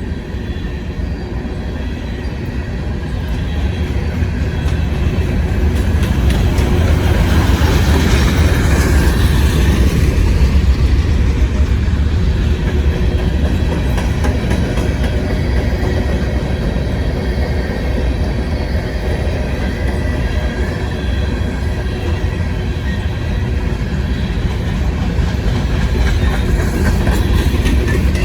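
Loaded coal freight train rolling past, a steady rumble and clatter of its wheels on the rails that grows louder about eight seconds in.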